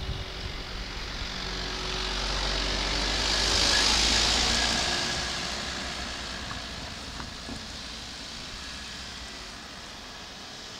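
A Volkswagen van passing close by and driving away: tyre and engine noise swells to a peak about four seconds in, then fades steadily.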